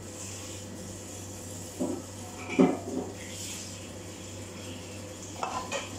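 A few short knocks and clatters of kitchen bowls being handled (a red plastic bowl and an enamel pot), the sharpest about two and a half seconds in and a small cluster near the end, over a steady low hum.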